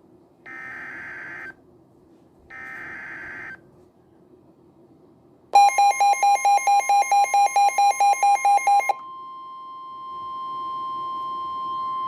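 Emergency Alert System broadcast tones. First come the last two of three warbling SAME digital header bursts, each about a second long with a second's gap. About five and a half seconds in, a loud rapid beeping of about four beeps a second starts over a steady 1050 Hz weather-radio attention tone. The beeping stops after about three and a half seconds, and the steady tone carries on alone.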